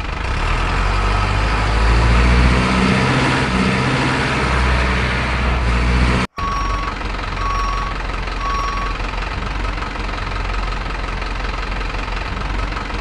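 Heavy truck engine running steadily. Partway through it drops out for a moment, then a reversing alarm beeps three times.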